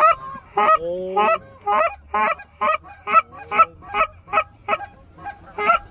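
Goose honking and clucking in a rapid, fairly even series, about three to four short honks a second, loud throughout.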